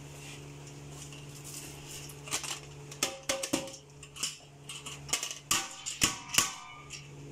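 Rice tipped from a metal bowl into a large aluminium pot of stock. From a little over two seconds in come irregular sharp metallic clinks and scrapes as the bowl knocks the pot rim, with the patter of grains going in, over a steady low hum.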